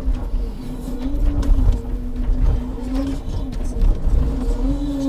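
Scania timber truck and its loader crane at work: a steady hum from the engine and hydraulics, its pitch dipping and rising slightly as the crane takes load. A few light knocks come through now and then.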